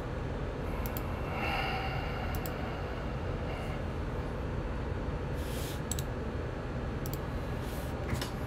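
Steady low background hum with about five sharp, well-spaced clicks from laptop keys and touchpad, and one short breath about five and a half seconds in.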